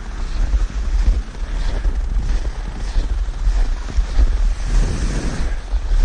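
Loaded sled dragged over a packed-snow trail, heard from a camera mounted on the sled: a steady low rumble with a scraping hiss that swells and fades. Wind buffets the microphone.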